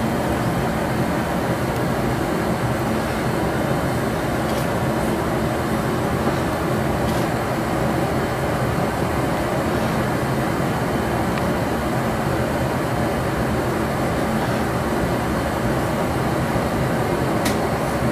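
Steady rushing noise of a glassblowing studio's gas furnace and glory-hole burners, even in level throughout, with a few faint light clicks.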